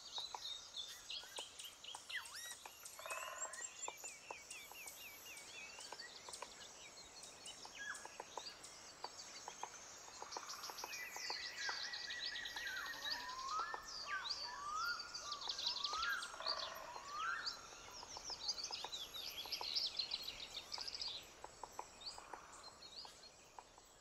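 A chorus of several songbirds chirping, trilling and whistling, fairly faint, growing busier about ten seconds in.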